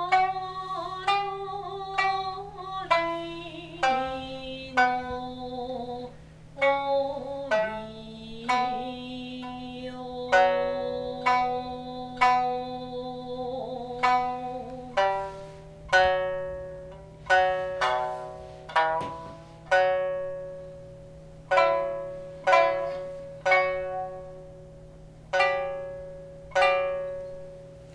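Shamisen plucked with a plectrum as dance music, about one note a second, each note ringing and dying away. Through roughly the first half, long gliding sung notes are held over it.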